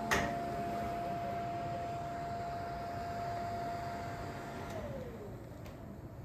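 A sharp click, then a steady electric whine held for about four and a half seconds. The whine then slides down in pitch and fades out, over a faint hiss.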